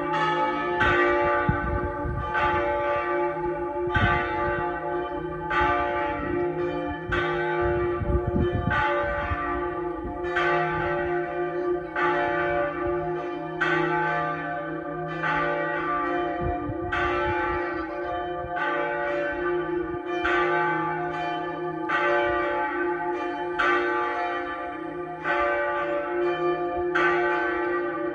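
Pershore Abbey's church bells ringing, with fewer than half of the full ring in use. The strikes come in a steady round, roughly one a second, and each bell's hum carries on into the next stroke.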